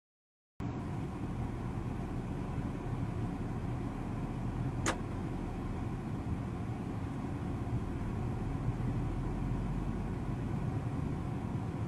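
Steady engine and road noise from inside a moving car, starting about half a second in, with a single sharp click about five seconds in.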